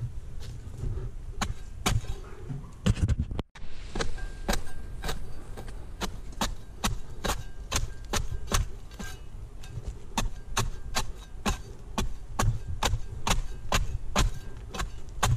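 Pruning blade chopping at the frond bases of a Canary Island date palm: a run of sharp knocks, about two a second, unevenly spaced. The sound cuts out for an instant about three and a half seconds in.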